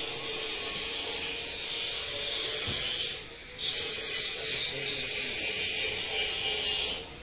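Steady scratchy, rustling hiss on the microphone, breaking off briefly about three seconds in and again near the end.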